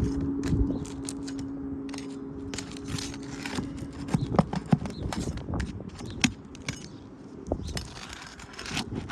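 Asphalt shingle tabs being pried up with a putty knife: irregular crackling, clicking and scraping as the sealant strip is broken loose. A steady hum runs underneath and stops about three and a half seconds in.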